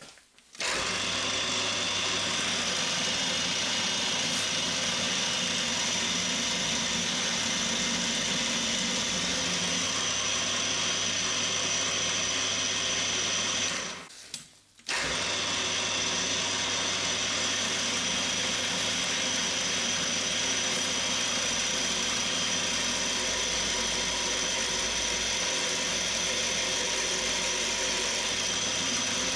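Cormak ZX 7045 mill-drill running at a steady speed, a constant motor-and-gear hum with a high whine, while a drill bores holes in an aluminium plate. The sound cuts out for about a second around halfway through, then starts again.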